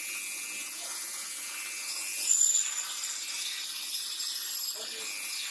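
Grinder working the steel of a forged railroad-spike knife blade, a steady high hiss of metal being ground. About two seconds in it briefly gets louder, with a higher whine.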